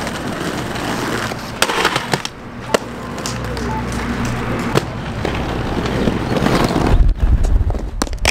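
Inline skate wheels rolling on concrete, the rumble building to its loudest near the end, with sharp clacks of the skates striking the ledge and pavement.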